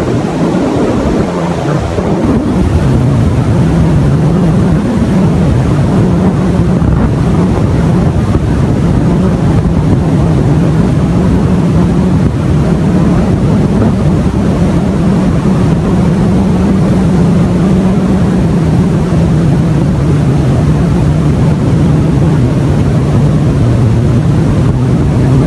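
Loud, steady droning hum over a rough rushing noise, its pitch wavering slightly and sinking lower near the end. It is an unexplained strange sound that was recorded in place of the speaker's voice.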